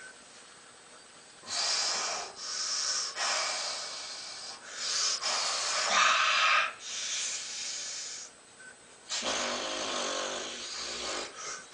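A man's heavy, forced breathing under exertion while lifting dumbbells: about six loud hissing breaths in a row, the last and longest carrying a low voiced groan.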